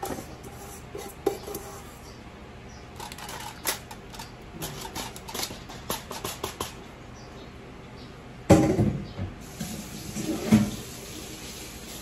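Aluminium foil crinkling and rustling under hands as it is folded around a fish in a baking dish, with a run of short crackles and two louder handling knocks, the first about eight and a half seconds in and the second about two seconds later.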